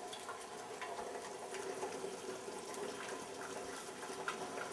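Milk simmering in a steel saucepan, a steady bubbling hiss, with a few faint taps.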